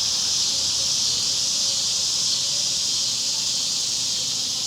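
Steady high-pitched chorus of insects, a dense continuous buzz that holds unchanged throughout.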